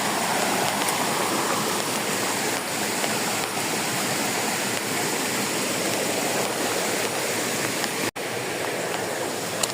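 Waterfall: a steady rush of falling water that cuts out for an instant about eight seconds in.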